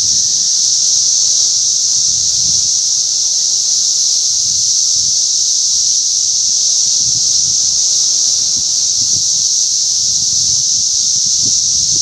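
A dense chorus of periodical cicadas: a steady, unbroken high-pitched drone that never pauses. Occasional low rumbles of wind on the microphone sit beneath it.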